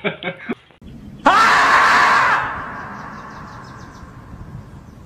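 The 'screaming marmot' meme's long scream: one loud, drawn-out cry that starts about a second in, rising in pitch at its onset and holding for about a second, then dying away with a long echoing fade.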